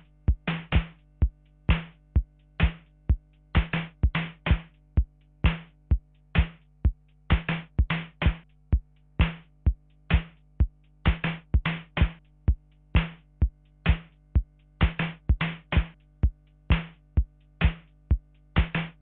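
Korg Kaossilator playing an electronic drum-machine beat: sharp hits about twice a second in an uneven, syncopated pattern over a steady low hum.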